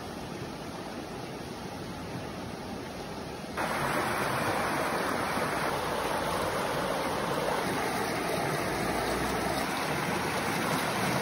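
Fast-flowing river rushing over rocks in white-water rapids: a steady wash of water noise that steps up louder about three and a half seconds in.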